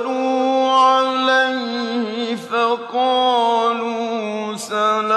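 A male voice chanting the Quran in the melodic mujawwad style. He draws out long held notes with slow pitch turns, and the notes break off briefly twice.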